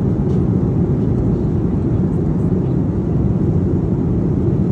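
Jet airliner cabin noise: the steady low rumble of the engines and airflow heard from inside the passenger cabin.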